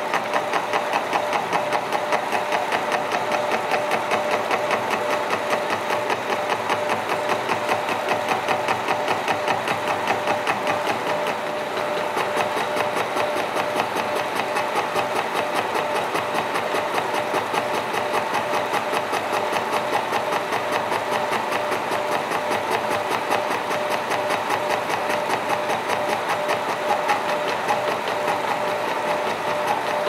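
Milling machine spindle turning a single-point fly cutter through a brass worm wheel blank, cutting a tooth: a fast, even clatter from the cutter's interrupted cut over the steady hum of the spindle drive.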